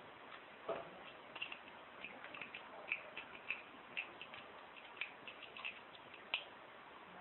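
A half-ball rake pick being worked in the keyway of a six-pin pin-tumbler padlock: faint, irregular metallic clicks and ticks as it rakes over the pins, with a duller knock about a second in.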